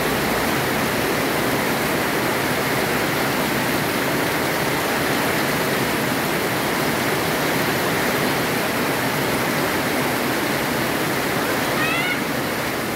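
Heavy rain pouring steadily onto trees, leaves and the ground, a dense, even hiss. Near the end a brief run of rising chirps sounds over it.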